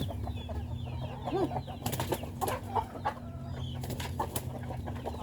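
Chickens clucking in short, scattered calls, with sharp taps and small high chirps among them over a steady low hum.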